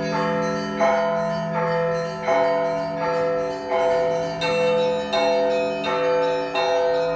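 Russian Orthodox church bells being rung: several bells of different pitch struck in a steady rhythm, a fresh stroke about every three-quarters of a second, over a lower bell that keeps sounding. The tones overlap and ring on.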